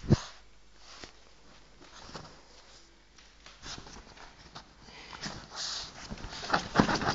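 A dog sniffing and shuffling about in blankets: a sharp thump at the start, short sniffs and faint rustles, then a louder flurry of rustling and clicks near the end.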